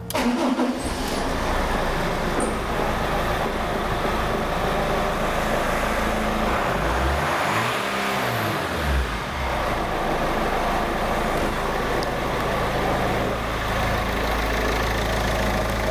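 Common-rail turbo-diesel car engine idling, with the throttle blipped once about seven seconds in: the revs rise for about a second, then fall back on over-run to a steady idle.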